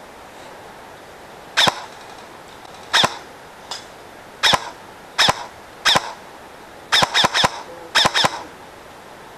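Airsoft gun firing about ten single shots, sharp cracks over a steady hiss: spaced shots roughly a second apart at first, then a quick run of three and another pair near the end.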